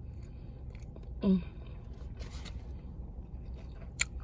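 A short vocal sound with falling pitch about a second in, then a brief rustle and a sharp click near the end, over a faint low hum.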